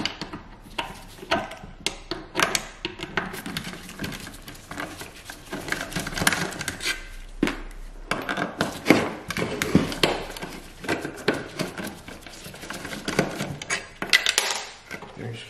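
Irregular small clicks, taps and clatters of metal parts: screws being worked out of an old distributor cap and set down on a car's painted hood, with the cap handled and knocked against it.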